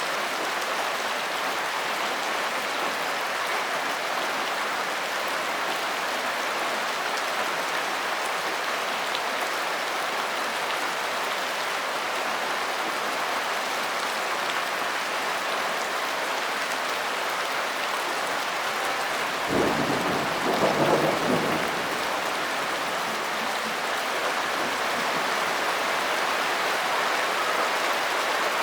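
Steady rain, with a single short clap of thunder about two-thirds of the way through that lasts about two seconds.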